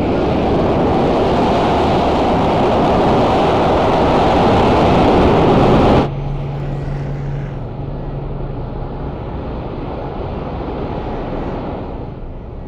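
Film sound effect of a spaceship's engines: a loud, steady rushing noise that grows slightly, then cuts off suddenly about six seconds in, giving way to a quieter rumble with a low hum that fades near the end.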